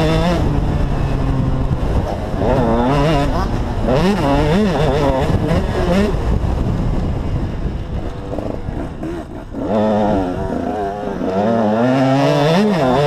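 KTM 125 SX single-cylinder two-stroke motocross engine at full throttle, its pitch climbing and dropping repeatedly through gear changes. The throttle closes briefly about two-thirds of the way through, then the revs climb hard again. Wind and rough-ground rumble run underneath.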